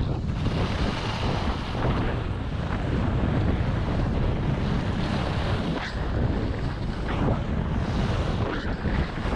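Wind buffeting a skier's camera microphone at speed, over the steady hiss of skis running on groomed snow, with a few short sharper scrapes as the edges bite in turns.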